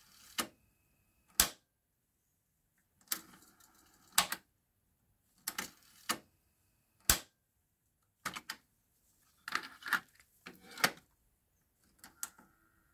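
Transport buttons on a Pyle PT-659DU cassette deck being pressed, each press a sharp mechanical click. There are about a dozen clicks at roughly one a second, some in quick pairs.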